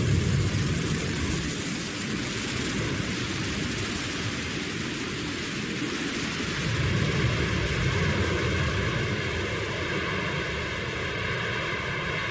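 New Shepard booster's BE-3 rocket engine firing on its landing burn: a steady rumbling rush of noise as the booster slows to a vertical touchdown.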